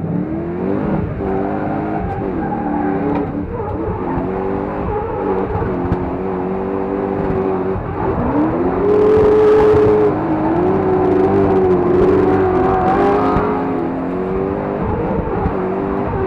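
BMW E36 drift car's engine heard from inside the cabin, revving up and down through a drift; the revs climb about eight seconds in and hold high, with a short hiss of noise around then.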